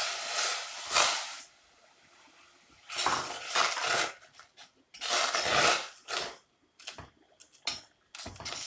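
Roasted rice flour being tipped into boiling water in a pan and stirred with a spoon: rough scraping strokes, three long ones, then shorter, quicker ones near the end.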